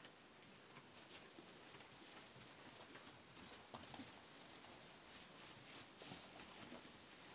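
Faint rustling of straw and light hoof steps as Jacob sheep and young lambs move about on straw bedding, with a few soft scattered knocks.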